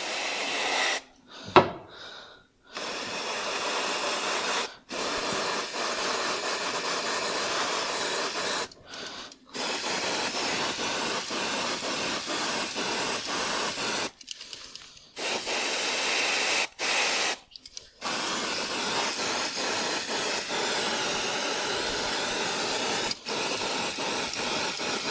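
Freeze spray hissing from an aerosol can onto a Vespa crankshaft in long bursts of a few seconds each, starting and stopping abruptly, to chill the shaft before it is fitted into the engine case.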